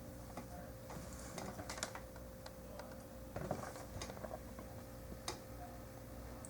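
Scattered light clicks and taps of small plastic model-kit parts being handled and pressed together, a few single ticks with a small cluster near the middle.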